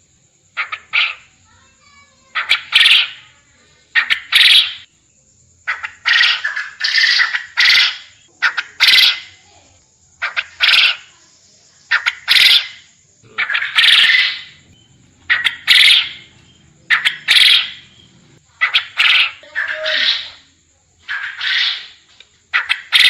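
Quail calling over and over, one short harsh call every second or two, sometimes two or three in quick succession, with a faint steady high whine behind.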